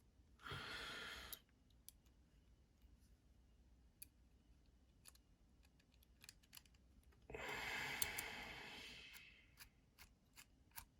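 Faint, scattered small clicks of a tool and screws being worked into a folding knife's pocket clip, with two breathy exhales, a short one near the start and a longer, fading one about seven seconds in.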